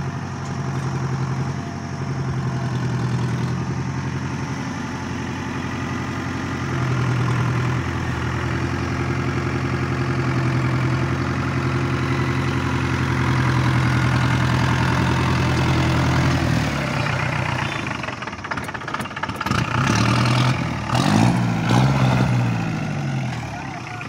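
Tata Sumo's 3.0-litre DI diesel engine running steadily at a fast idle, its note stepping up a little partway through, while the vehicle sits stuck in soft sand. About three quarters of the way in the steady note breaks off and the sound turns uneven, rising and falling in pitch, as dust is thrown up beside the vehicle.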